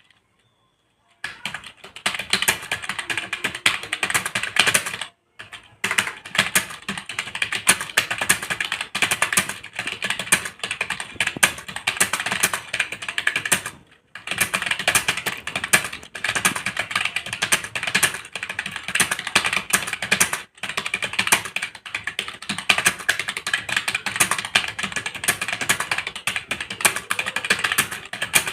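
Fast continuous typing on a computer keyboard, a rapid stream of key clicks that starts about a second in, with a few brief pauses, during a timed typing-speed test.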